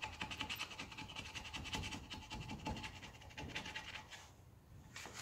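Fast, rhythmic hand-tool strokes on the engine block, about ten a second, stopping about four seconds in, with a single click near the end.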